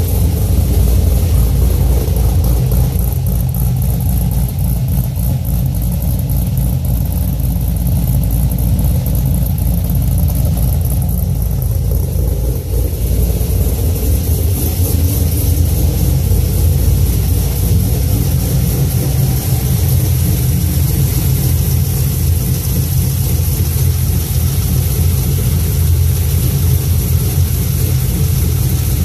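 GM LS V8 with a big aftermarket camshaft idling steadily, with a fast ticking from the valvetrain that the owner takes for lifter noise and is unsure is normal for a big cam.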